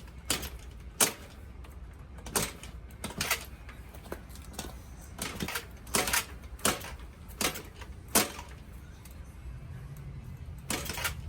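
Irregular sharp clicks and knocks, about a dozen, over a low steady hum that grows a little fuller near the end.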